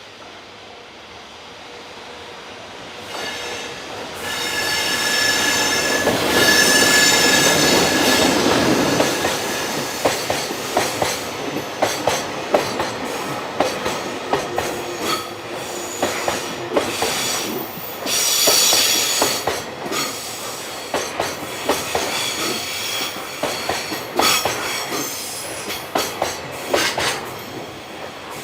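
Freight train passing close by, getting louder over the first few seconds. A high squealing whine peaks a few seconds later, then comes a long run of wagon wheels clicking over rail joints, with a second squeal about two-thirds of the way through.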